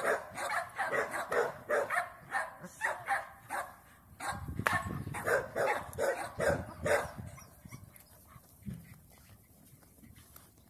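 Russian Black Terrier barking and growling in quick bursts, several a second, while gripping a bite sleeve in protection work. The sounds thin out and grow fainter after about seven seconds.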